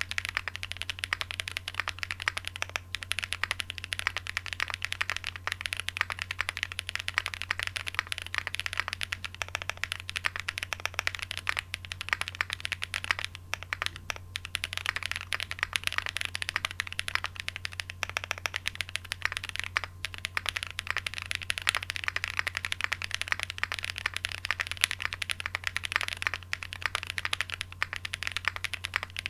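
Continuous fast typing on a Graystudio Space 80 Apollo mechanical keyboard fitted with lubed Holy Boba tactile switches, an FR4 plate and GMK keycaps. The keystrokes come in a dense, even run of clacks, with a couple of brief pauses.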